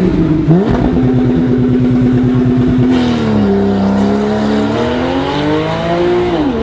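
Porsche 991 Carrera 4S flat-six engine revving. Its pitch rises about half a second in and holds steady, dips around three seconds in, then climbs slowly and drops sharply near the end.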